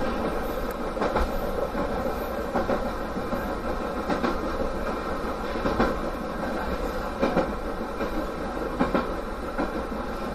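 Ichibata Electric Railway 2100-series electric train running, heard from inside the front of the car: a steady running noise with a clack of the wheels over rail joints about every second or two.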